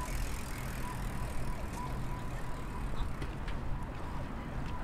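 Outdoor ambience: a steady low rumble, with faint short chirps and a few light ticks over it.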